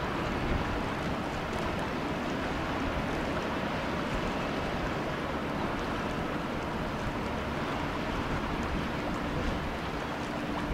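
Steady low engine hum from a cruise ship and its harbour tug on the river, over a wash of water, with wind buffeting the microphone.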